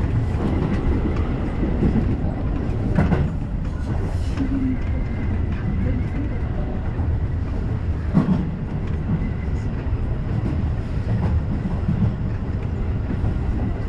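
Electric commuter train running on its line, heard from inside the driver's cab: a steady low rumble with a few short clacks as the wheels pass over rail joints.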